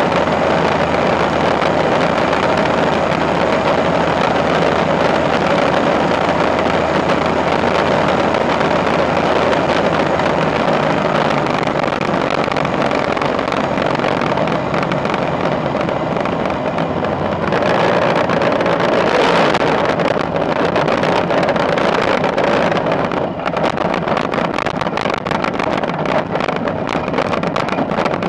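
Ultralight aircraft's engine and propeller running steadily, with wind rushing over the microphone in the open cockpit. It grows louder and brighter for a couple of seconds about two-thirds of the way through.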